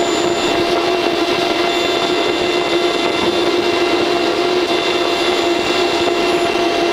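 Battery charger running under load, its cooling fan blowing steadily with one constant hum over the rush of air.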